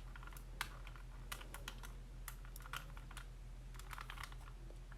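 Faint, scattered light plastic clicks of a 3x3 Rubik's Cube being handled in the hands, over a low steady hum.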